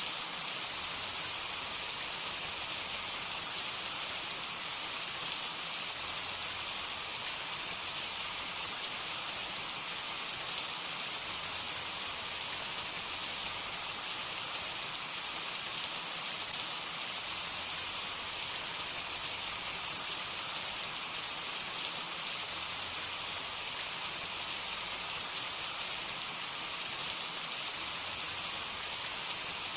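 Food frying in hot oil: a steady sizzle with small crackles scattered through it.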